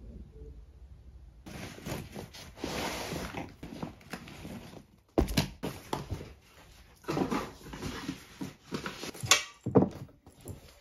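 Handling sounds on a desk as an aluminium folding laptop stand is set up and a laptop is placed on it: soft rustling at first, then a few sharp knocks of metal and laptop against the stand, one about halfway through and two close together near the end.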